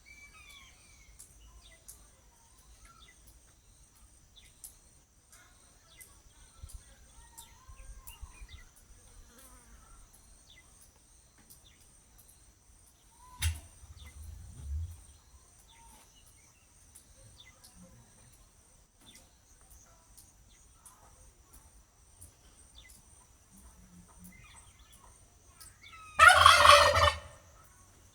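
Steady high insect buzzing with faint, scattered bird chirps and a single sharp knock about halfway, then a turkey gobbles once, loudly, near the end.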